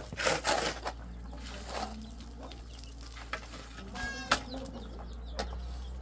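Steel shovels scraping into gravelly soil and tossing it into a wheelbarrow, with a few sharp knocks. A chicken clucks briefly about four seconds in.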